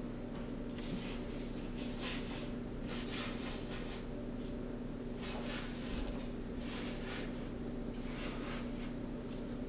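A pencil scratching across cardboard in a series of short, irregular strokes, about one a second, as circles are drawn, over a steady low hum.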